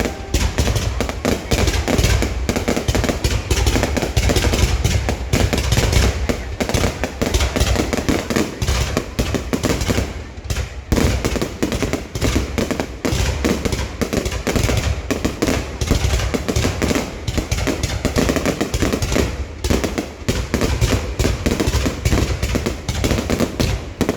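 Dense, continuous fireworks: rapid crackling and popping mixed with booming bursts, barely a pause except a brief lull about ten seconds in.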